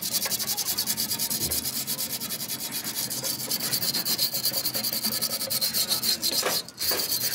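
Rapid, even scraping strokes as a radiator part is abraded, with a short break near the end.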